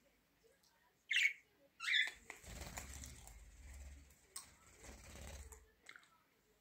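Yellow budgerigar giving two loud, sharp chirps a little after a second in, then flapping its wings for about three and a half seconds as it flies off the cage top and lands back on it.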